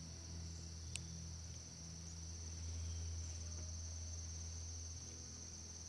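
A steady insect chorus, an even high-pitched chirring that does not let up, over a low steady drone. A single short high tick about a second in.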